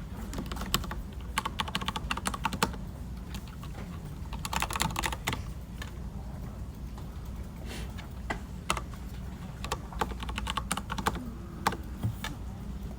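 Typing on a computer keyboard: irregular runs of key clicks with short pauses, some single louder keystrokes, over a steady low office hum.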